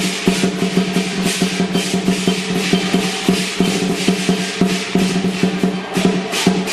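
Lion dance percussion: a large drum beaten in a fast, steady roll of strokes with crashing cymbals over it.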